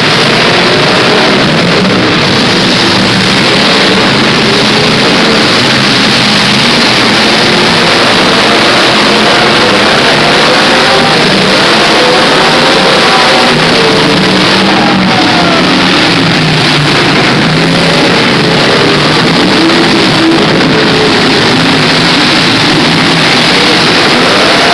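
Several demolition derby cars' engines revving hard together, a loud, dense din of overlapping pitches that rise and fall as the drivers work the throttle.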